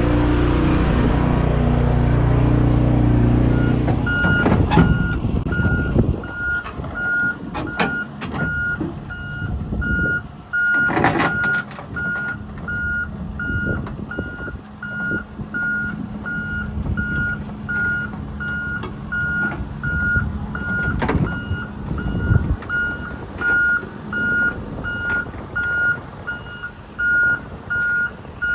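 Vehicle reversing alarm beeping at a steady, even rate over the low rumble of a truck. A loud engine runs for the first few seconds, and a few knocks come through.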